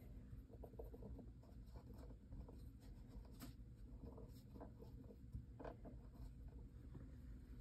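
Faint, scattered scratching and small clicks of light handling, like a pen or small objects being moved and rubbed.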